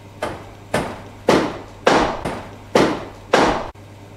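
A hammer striking steadily, about two blows a second, seven in all, cutting off suddenly near the end.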